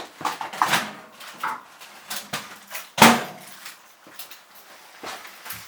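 Kitchen handling sounds as a finished microwave meal is taken out: a string of short knocks and rustles, with one sharp, loud knock about three seconds in.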